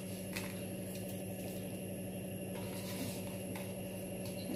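A steady low hum, with a couple of faint clicks.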